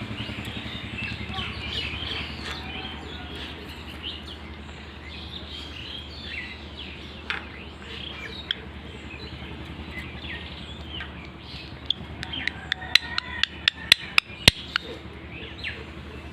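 Ringneck parrot chattering in short, soft chirps over a steady low hum, with a quick run of sharp clicks near the end.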